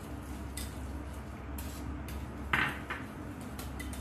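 Wire whisk stirring thick cheesecake filling in a glass bowl, with light clinks and scrapes of the wires against the glass and a louder scrape about two and a half seconds in.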